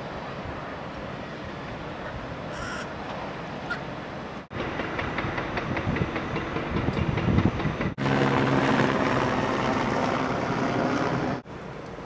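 Steady city background rumble of traffic and machinery. It changes abruptly at cuts between clips, and the loudest stretch, near the end, carries a steady low mechanical hum.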